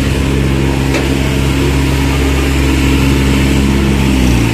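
Motorcycle engine running steadily close by, then slowing and cutting off about four seconds in.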